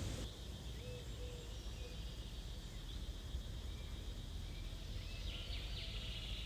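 Quiet outdoor background with a low rumble and a few faint bird chirps near the end.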